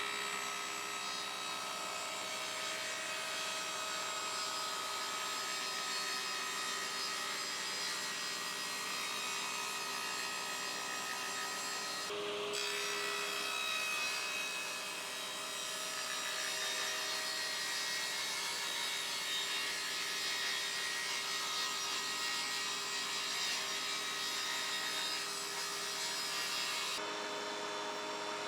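Power woodworking machine running and cutting or sanding wood, with a steady motor hum under the noise of the cut. The sound shifts abruptly about twelve seconds in and again near the end.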